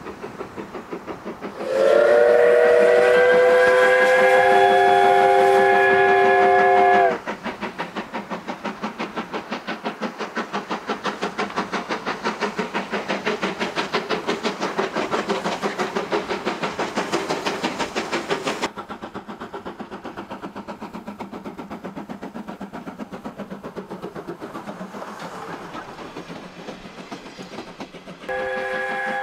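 Steam locomotive C12 66, a C12-class tank engine, working with rapid, even exhaust chuffs. Its steam whistle gives one long multi-note blast of about five seconds a couple of seconds in, and sounds again near the end. About two-thirds of the way through, the chuffing drops to a lower level.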